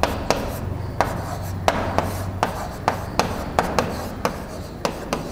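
Marker pen writing on a board: quick rubbing strokes with a dozen or so sharp ticks as the tip lands and lifts.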